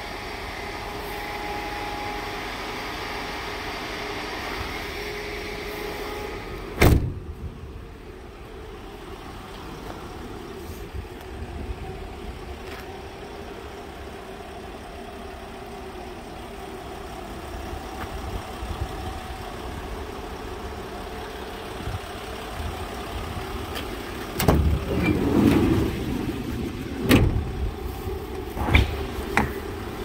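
Doors of a Mercedes Sprinter's refrigerated cargo box being handled: one loud thud of a door shutting about seven seconds in, then several knocks and latch clicks near the end, over a steady low hum.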